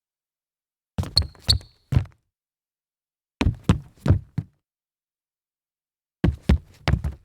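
Sneakers stumbling forward on a wooden floor: three separate stumbles, each a quick run of three or four heavy, uneven footfalls, with a short rubber-sole squeak twice in the first one.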